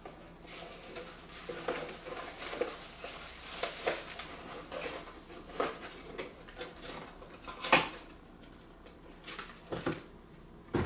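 Boxes and packaging being handled during an unboxing: scattered rustles, light knocks and clicks, the sharpest click about eight seconds in.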